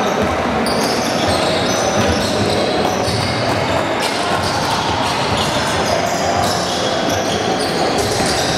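Basketball game sounds in a gym: a ball bouncing on the court amid short knocks, over a steady din of players' and spectators' voices.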